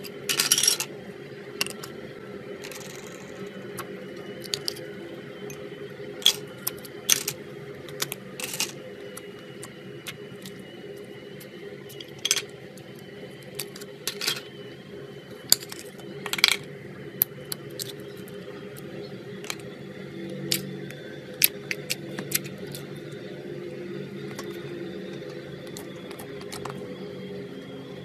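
Slime and jelly balls being squeezed and poked by hand, giving scattered sharp clicks and pops over a steady low hum.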